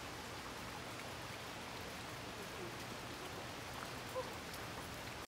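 Steady, even hiss of wet outdoor ambience, with a short faint chirp about four seconds in.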